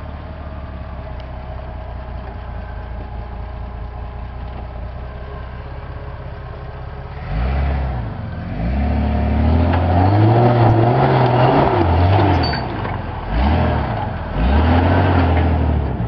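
Jeep Cherokee XJ engine running at a steady low idle, then revved repeatedly from about seven seconds in, the pitch rising and falling with each push of the throttle as the Jeep climbs a rocky ledge.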